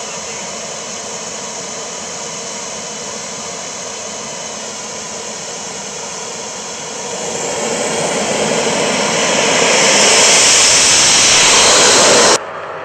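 Radio-controlled F-16 model jet's engine running with a steady whine and rush, then spooling up from about seven seconds in and growing much louder as the jet starts its takeoff roll. The sound cuts off abruptly near the end.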